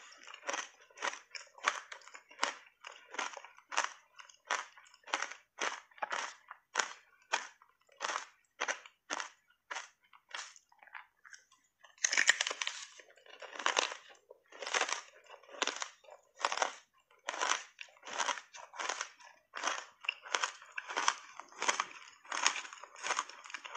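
Hard ice chips coated in matcha powder crunched between the teeth, in a steady chewing rhythm of about two crunches a second. Near the middle the crunching pauses briefly, then a louder fresh bite starts and the crunches come quicker.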